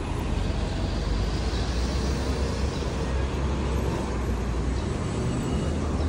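Steady city street traffic noise: a continuous low rumble of passing cars and other vehicles.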